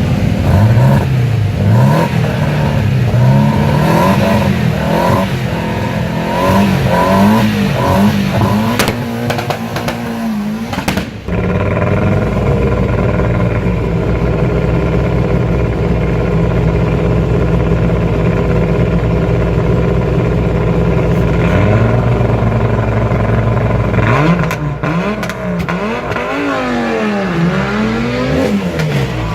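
Rally car engine blipped again and again, its pitch rising and falling with each rev. After an abrupt break the engine note holds steady for about twelve seconds, then the repeated revving comes back near the end.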